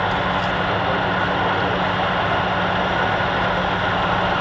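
Heavy machinery engine running steadily: a constant low hum under an even rush of noise, with no change in pace.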